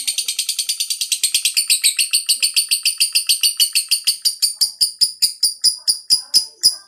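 Lovebird giving its long, rapid chattering trill ('ngekek panjang'): a high-pitched run of repeated notes, about ten a second at first and slowing to about five a second, breaking off suddenly at the end.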